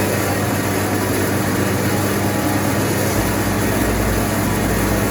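Electric motor driving a mini rice mill and grinder, running steadily: a constant hum under a broad, even rushing noise.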